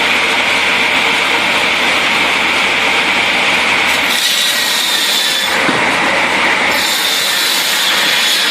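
Heavy wood-processing machine working wood: a loud, steady grinding noise. A sharper hiss comes in twice, about four and about seven seconds in.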